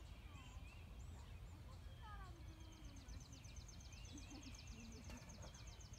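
Quiet outdoor ambience: birds chirping, with a rapid, high, evenly pulsed trill starting about halfway through, over a steady low rumble.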